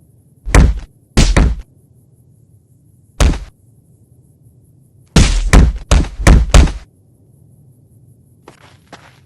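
Loud, short, harsh bursts of breath from an animal with a breathing problem, coming in uneven clusters: two, then one, then a quick run of about five, with two faint ones near the end.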